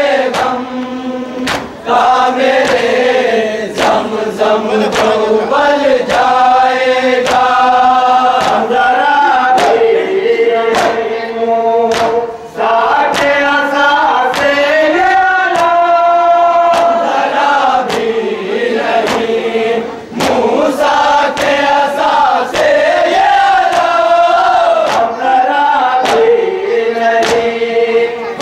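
A chorus of voices chanting a nauha, a Shia lament, in unison. Sharp, even slaps at about two a second run under the chant, typical of matam, chest-beating, keeping time.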